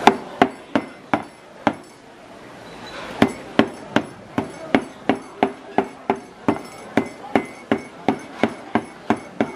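Knife chopping live long-arm octopus on a cutting board: sharp knife strikes, about five in the first two seconds, then after a short pause a steady run of about three a second.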